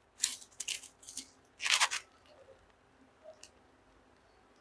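Plastic fish-transport bag crinkling in a few short rustles as it is handled.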